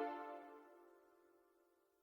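Background music fading out: its held tones die away within the first half second, leaving near silence.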